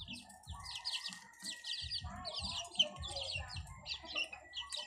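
Young chicks peeping continuously, many short high falling peeps a few each second, over soft low thuds.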